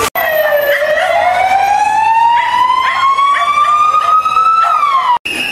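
Electronic siren wailing: one tone rising slowly over about four seconds, then falling away near the end, with a few short sharp calls mixed in. The sound cuts out briefly just after the start and again near the end.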